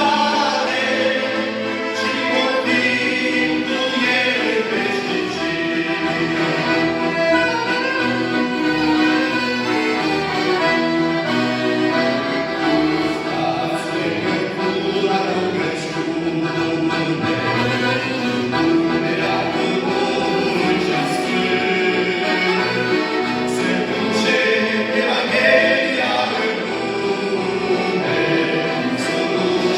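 A group of young people singing a Christian hymn of praise together, with instrumental accompaniment.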